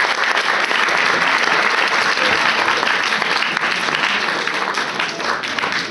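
Audience applauding steadily, a dense mass of clapping that eases a little near the end.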